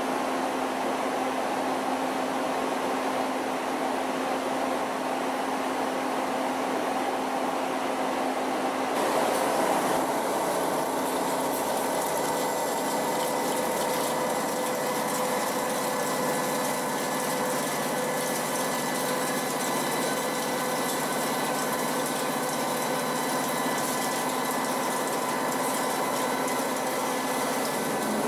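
CNC machine tool's spindle head running: a steady mechanical hum with several whining tones. About nine seconds in, a brighter hiss joins and higher whine tones appear, going on steadily after that.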